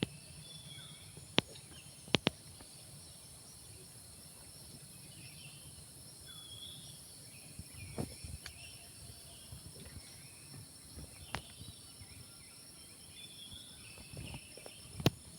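Morning forest ambience: a steady, high-pitched drone of insects, with short scattered bird calls and a few sharp clicks.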